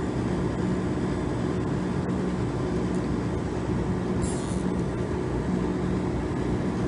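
Steady hum and whir of running ice-machine refrigeration equipment, with a constant low drone. About four seconds in comes a short rasp of a zip tie being pulled tight.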